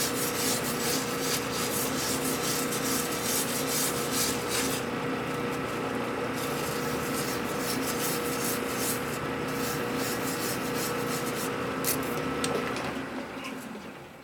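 Hand file rasping against a metal workpiece turning in a lathe, over the lathe's steady motor and gear whine. The file is smoothing a rough, uneven turned surface. Near the end the filing stops and the lathe winds down.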